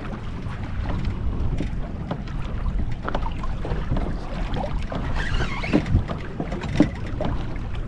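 Water lapping against a kayak's hull, with scattered light knocks and some wind on the microphone.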